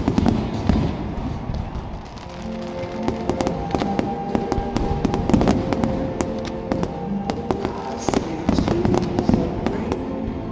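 Aerial firework shells bursting in quick succession, many sharp bangs one after another. Music plays over the stadium loudspeakers underneath, coming in about two seconds in.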